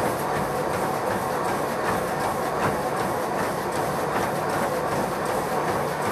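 Treadmill in use by a runner: the motor and belt run steadily under regular thuds of running footfalls on the deck.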